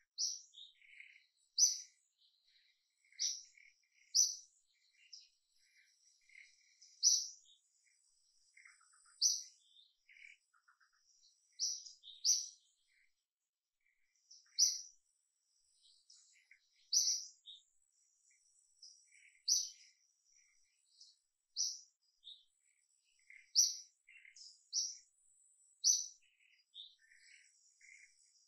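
Birds chirping: short, sharp, high chirps repeating every second or two, with softer, lower chirps in between.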